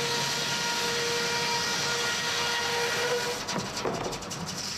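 Sawmill's giant circular head saw running, a steady whine over a hiss; about three and a half seconds in the whine drops away and a rougher, stuttering noise takes over.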